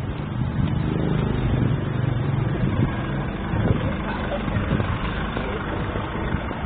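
Steady low rumble of motor traffic, with engine hum under a noisy wash.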